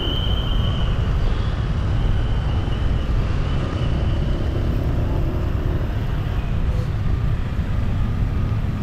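Dense street traffic of motor scooters and cars: a steady, loud low rumble of many small engines and road noise, with a brief high whistle-like tone near the start.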